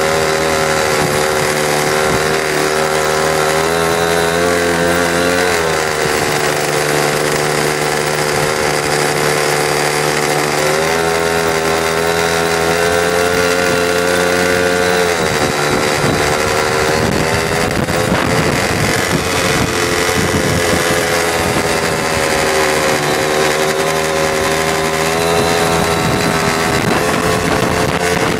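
X-1 pocket bike's small single-cylinder engine running under way, its pitch climbing and dropping twice in the first half as the throttle is opened and closed. Wind buffets the microphone in the second half.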